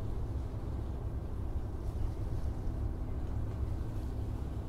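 A distant tugboat's engine hums steadily under a low rumble of wind on the microphone.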